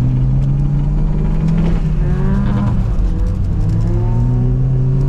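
Car engine under throttle while drifting on ice, its note climbing, dropping back about two and a half seconds in, then climbing again.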